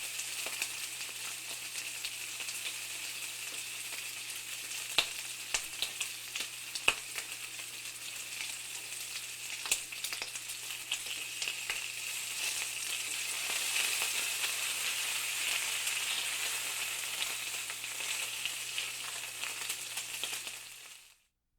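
Bacon frying in a pan: a steady sizzle with frequent sharp spits and pops of fat, swelling a little louder for a few seconds past the middle, then fading out near the end.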